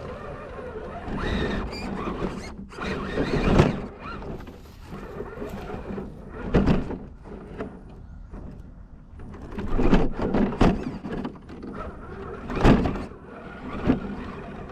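Element RC Enduro Trailrunner scale crawler driving over rough ground, heard from a GoPro mounted on the truck: a steady low hum from the drivetrain, with the chassis knocking and thudding over obstacles about six or seven times.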